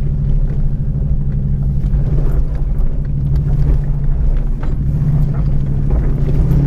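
Jeep Grand Cherokee WJ engine running steadily at low speed while crawling up a rocky off-road climb, with scattered knocks through it.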